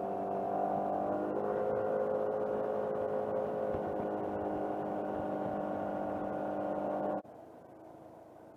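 Vehicle engine running steadily under way, its pitch shifting slightly about a second in. The sound drops off abruptly about seven seconds in, leaving a faint hum.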